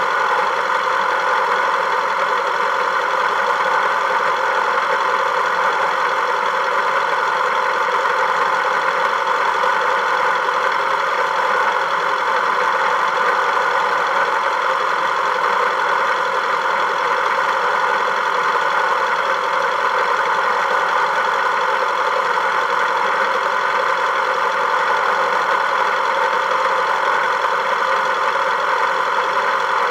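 A Volkswagen's engine running steadily: an even drone that holds the same pitch and level throughout.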